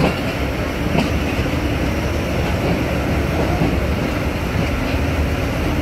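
Passenger train coach running along the track, heard from its open window: a steady rumble of wheels on rails mixed with rushing air, with a sharp click at the start and another about a second in.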